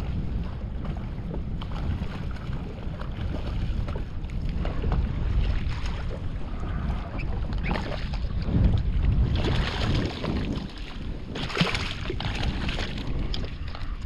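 Strong wind buffeting the microphone as a deep, unsteady rumble, with choppy water slapping and splashing against a small boat's hull. The splashing gets louder in the second half.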